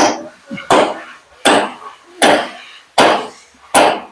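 Hand hammer striking steel six times, about three-quarters of a second apart, each blow ringing briefly. It is driving the short lock key (draw key) home in the top of a truck front-axle steering knuckle to secure the king pin.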